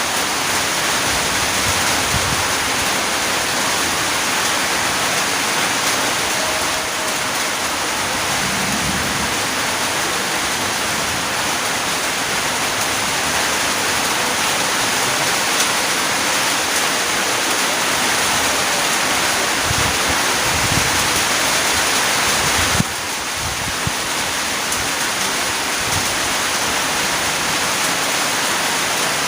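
Steady rain falling, a dense even hiss with a few soft low thuds among it. The level drops slightly and suddenly about 23 seconds in.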